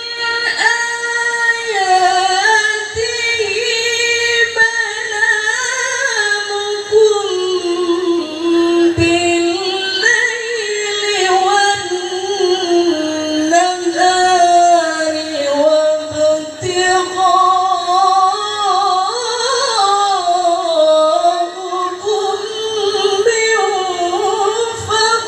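A woman reciting the Quran in the melodic tilawah style into a handheld microphone, holding long, slowly ornamented notes with a few short pauses for breath.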